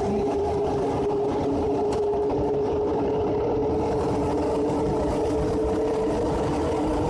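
Paris Métro MP89CA rubber-tyred train running through a tunnel, heard from inside the car: a steady traction-motor whine over the low rumble of running. The upper tone edges slightly higher near the end. This is the unusual motor sound that this train set is singled out for.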